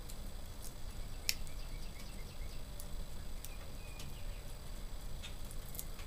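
Wood fire burning in an open wood stove: a low steady rumble with scattered sharp crackles and pops, the loudest about a second in. Faint bird chirps in the background in the middle.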